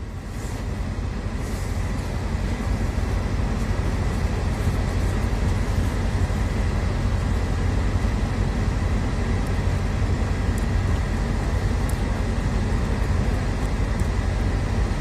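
Steady road and engine rumble inside a moving vehicle, building over the first few seconds and then holding.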